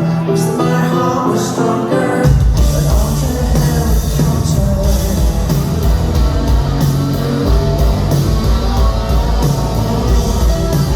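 A live rock band playing, with singing. A lighter opening gives way about two seconds in to the full band, with heavy bass and drums.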